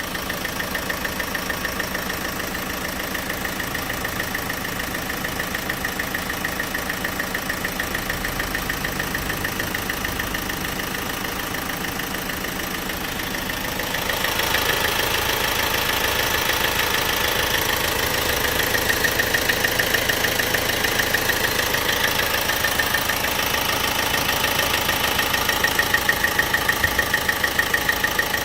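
1.6 CDTi diesel engine idling with a rapid, even ticking. The ticking is the unexplained noise being recorded. It becomes louder and sharper about halfway through.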